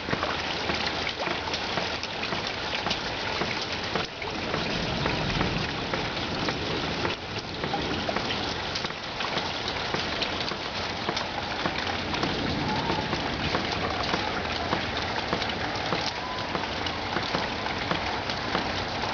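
Hail, mostly nickel-sized, falling heavily: a steady, dense patter of countless small ice impacts.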